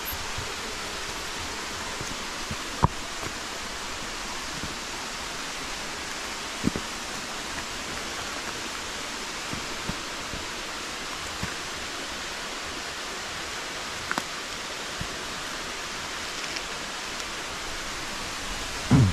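Steady rushing of a mountain stream in a valley, an even hiss of water. A few sharp knocks break through it, the loudest about three seconds in and another near seven seconds.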